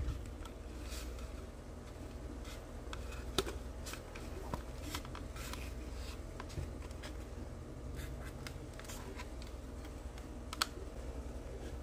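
Faint clicks and scrapes of a plastic model car's interior tub being worked into its body shell during a test fit, with sharper clicks about three seconds in and near the end.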